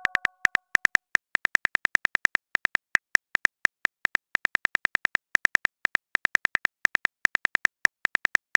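Smartphone keyboard typing clicks: a fast run of short, identical ticks, about six a second with small pauses, one per letter as a text message is typed.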